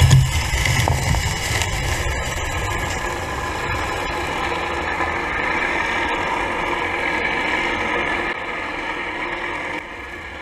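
Steady drone of the towing boat's engine and propeller, heard through an underwater camera, with a strong low rumble; it drops in level near the end.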